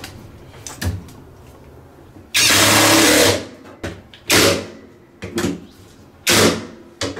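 Power drill driving in 10 mm bolts: one run of about a second, then several short bursts.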